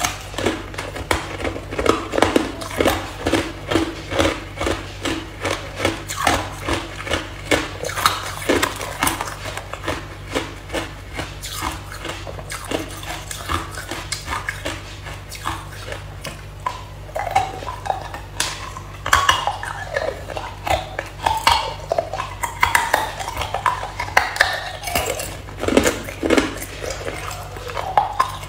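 Chunks of hard ice being bitten and chewed close to the microphone: a dense run of sharp cracking crunches, several a second.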